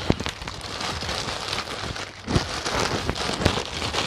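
Thin plastic bag crinkling and crackling as it is crumpled and stuffed into a jacket's inside pocket, with a few sharper crackles, one near the start and one about three and a half seconds in.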